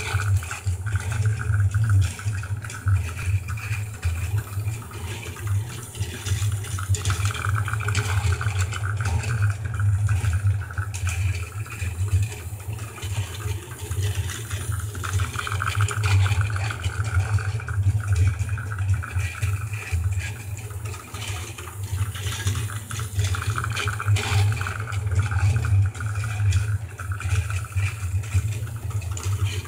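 Plarail battery-powered toy train whirring and rattling around a loop of plastic track, with a steady low motor hum. The whirr grows louder and fainter several times as the train passes near and goes round the far side.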